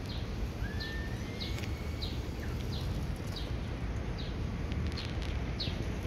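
A small bird chirping over and over, short high notes about twice a second, over a steady low outdoor rumble.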